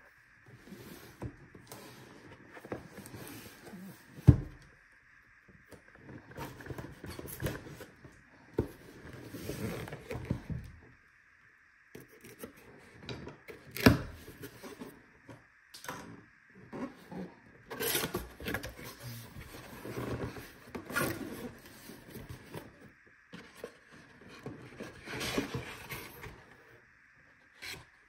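Cardboard box being handled and opened: irregular scraping and rustling as the end flap is worked loose and pulled open, with two sharp knocks, one about four seconds in and one near the middle.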